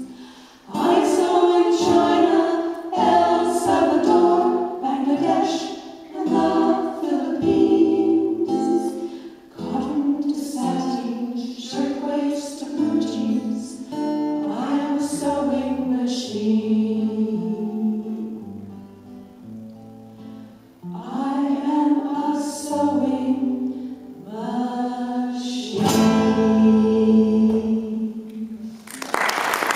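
Women's vocal group singing in harmony to acoustic guitar, in phrases with short breaks and a quieter passage about two thirds of the way through. A sudden loud burst of noise comes right at the end.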